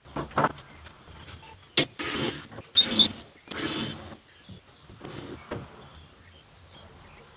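Hands-on repair work: a few sharp knocks and clicks mixed with short scraping and rustling, as wooden laths and fittings are handled and fixed.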